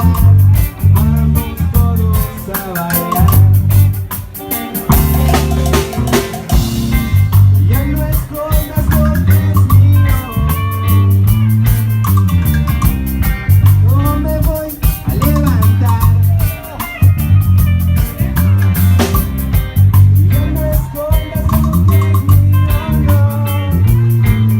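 A live band playing a song with singing, a steady drum beat and a repeating bass line.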